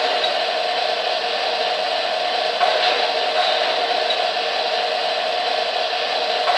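O-gauge three-rail model train rolling along the track, a steady whirring rumble of metal wheels and motor with a few faint clicks.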